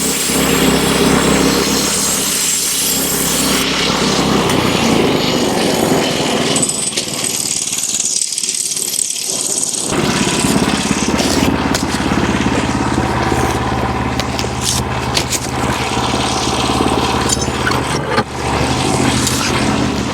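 Wood-Mizer LX25 portable sawmill running, its pull-started small gas engine driving the band blade through a hemlock beam. The sound is steady and loud, and its tone shifts for a few seconds midway.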